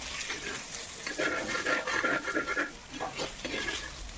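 Metal ladle scraping and clinking against a kadhai as pieces of bhakuswa are turned in hot oil, with a light sizzle of frying. The scraping is busiest about a second in, with a thin squeak as the ladle drags along the pan.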